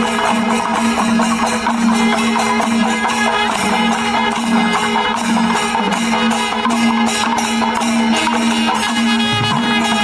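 Background music: a steady low drone under dense instrumental playing, with an even percussion beat.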